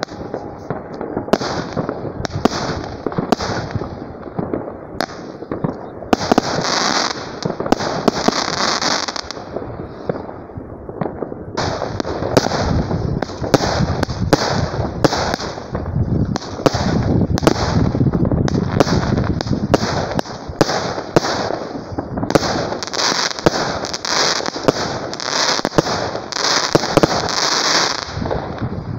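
Consumer fireworks battery (cake) firing shot after shot: sharp launch and burst bangs about one to two a second, with bursts of hiss between them.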